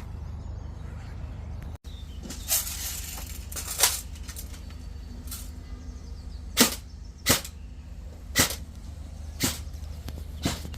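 Airsoft gun firing single shots, about eight sharp cracks spaced roughly a second apart, starting a couple of seconds in, over a steady low rumble.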